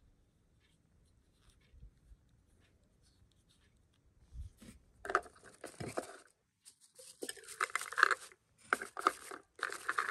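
Shredded paper-ribbon packing filler and cardboard gift packaging rustling and crinkling as a hand arranges items in the box. It is faint at first, then comes in several bursts from about halfway in.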